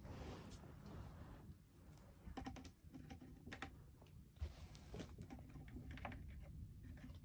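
Faint, irregular plastic clicks and taps of foam darts being pushed one by one into a Nerf blaster, with a short rustle near the start.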